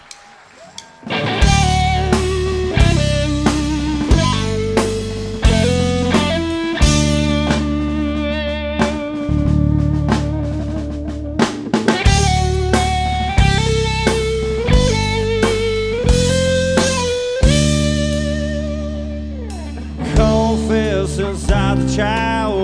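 Blues-rock band playing an instrumental intro with no vocals yet. A lead guitar plays held, bent notes with vibrato over bass and a drum kit. The band comes in about a second in.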